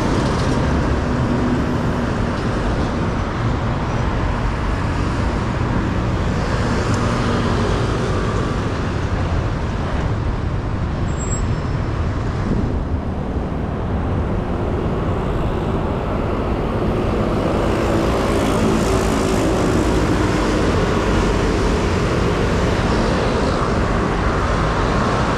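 Steady road traffic at a busy multi-lane intersection: cars, buses and trucks passing and idling. An engine's hum comes through more strongly in the last third.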